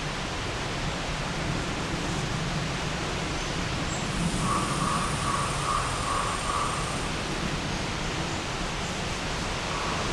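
Steady hiss of outdoor background noise, with a faint run of short repeated high notes near the middle.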